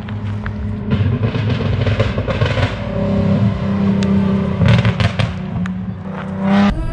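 A vehicle engine running and revving.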